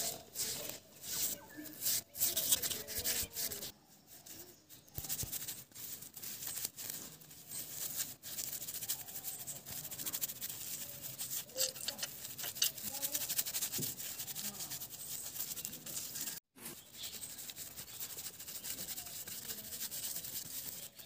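Paintbrush rubbing and scratching across the primed, crinkled tissue-paper surface of a paper sculpture in many short, quick strokes.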